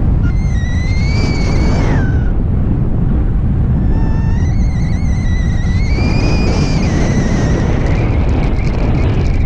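Strong airflow buffeting the camera microphone in paraglider flight. A high, wavering whistle rides over it for about two seconds near the start and again from about four seconds in.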